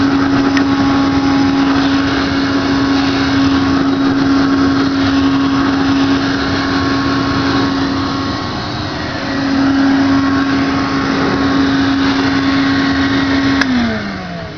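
Hoover Constellation 858 canister vacuum's motor running with a steady hum while the cleaner floats on its own exhaust air. The sound dips briefly about two thirds of the way through. Near the end the motor is switched off and winds down, falling in pitch.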